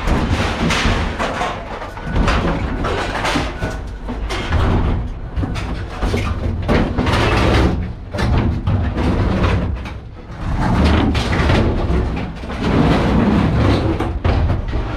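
Repeated irregular thumps and bangs of scrap being handled and thrown.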